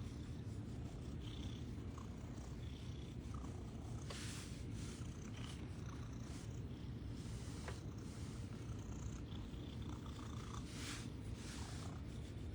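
Domestic cat purring steadily, close up, with a couple of brief rustling noises about four seconds in and again near the end.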